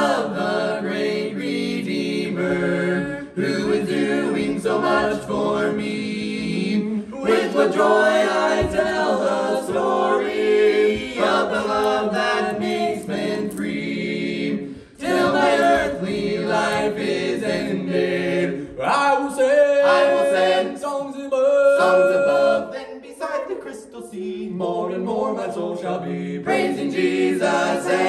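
Several voices singing a song together in harmony, a cappella, in sung phrases with a brief break about halfway through.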